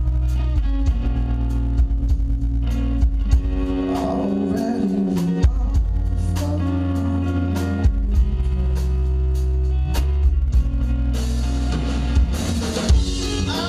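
Live rock band playing: electric guitar, bass guitar and drum kit. The cymbals grow louder near the end.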